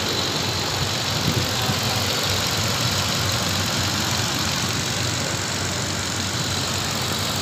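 A 2011 Toyota Land Cruiser engine idling steadily in the shop. The engine is being diagnosed for a misfire and stored camshaft timing over-advanced/retarded codes, but its idle sounds stable.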